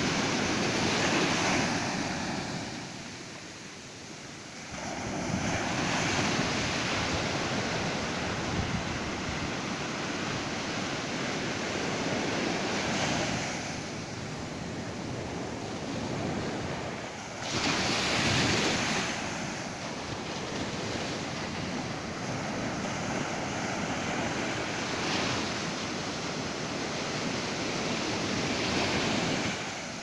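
Ocean surf: low waves breaking and washing up a sandy beach in a continuous rush that swells and eases every few seconds, loudest a little past halfway.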